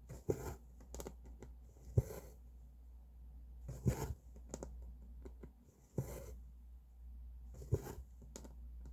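Cross-stitch needle and thread being pulled through fabric: a short rustling pull about every two seconds, with small clicks between, over a steady low hum.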